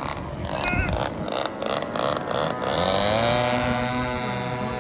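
Radio-controlled model airplane engine running. About three seconds in its pitch rises sharply as it throttles up, then holds high, as for a plane taking off from the runway.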